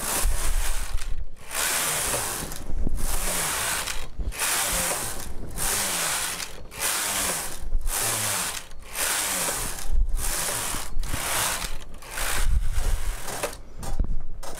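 Knitting machine carriage pushed back and forth across the needle beds, knitting rows of a rib band. Each pass is a mechanical rattling whir about a second long, with a brief pause at every turn, about a dozen passes in all.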